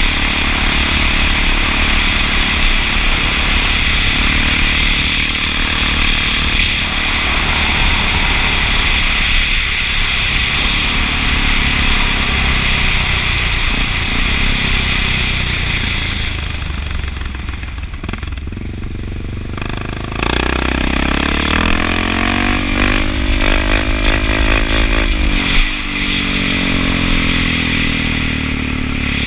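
Honda XR650L's single-cylinder four-stroke engine running under way, with wind rushing over the microphone. The engine eases off about two-thirds of the way through, then revs up again with rising pitch before backing off once more near the end.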